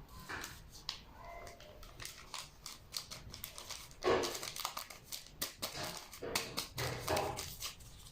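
Scattered clicks and rustling of kitchen handling, with a few short vocal sounds about four and seven seconds in.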